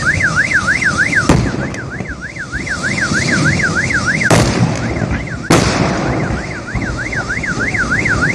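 Car alarm warbling, its pitch rising and falling about four times a second. Over it, a burning vehicle explodes in a series of bangs: a sharp one about a second in, then two heavier blasts at around four and five and a half seconds.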